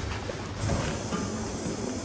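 Quiet background music, with a soft hiss swelling about half a second in.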